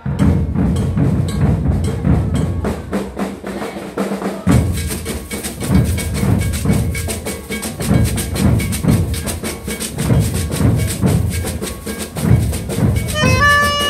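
Street percussion group drumming: deep bass drums under fast, dense stick strokes. Near the end, accordion music comes in.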